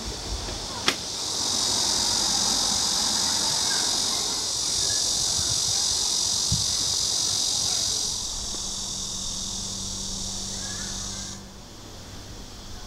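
Cicadas droning in a steady, high-pitched chorus that swells about a second and a half in and cuts off abruptly near the end. A single sharp click sounds about a second in.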